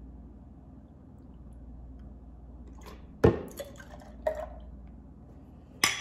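Almond milk poured from a carton into a plastic measuring cup and then from the cup into an insulated tumbler, a faint liquid trickle. Sharp knocks of the cup and containers about three seconds in and again near the end.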